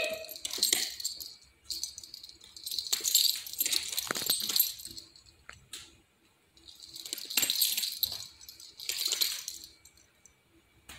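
A small dog's collar tags jingling as it moves about, in three bursts with short pauses between.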